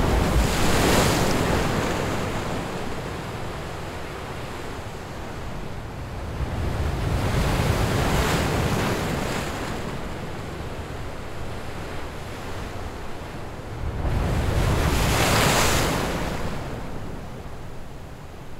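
Waves washing in, swelling and fading three times, with wind.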